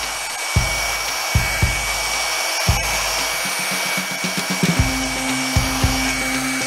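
Handheld electric rotary polisher running steadily against a painted steel car fender, its motor giving a thin, even whine. Background music with a regular beat plays under it.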